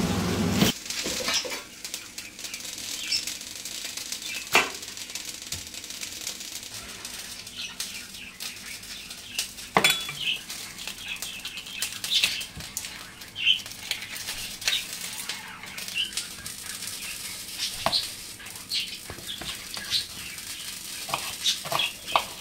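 Chicken frying in a saj, a domed iron pan: a steady sizzle with crackles and pops, and a few sharp knocks of a utensil against the pan.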